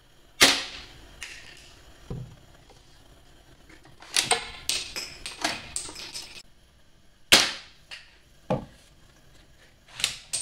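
Toy Barrett sniper rifle dart blaster firing twice, each shot a sharp snap, about seven seconds apart, each followed a second or so later by a dull thud. In between and near the end come runs of quick plastic clicks and clacks as the blaster is worked and cocked again.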